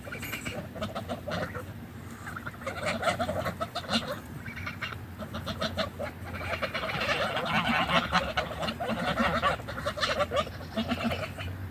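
A flock of domestic geese honking and chattering over each other, with short clicks of pecking and feeding. The calls are busiest about halfway through.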